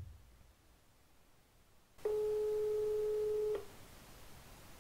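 Telephone ringback tone heard through the call: about two seconds in, one steady beep lasting about a second and a half, the signal that the called phone is ringing.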